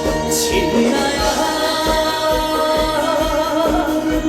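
Live trot song music: a steady kick-drum beat under a sustained, wavering melody line, with a brief swish about half a second in.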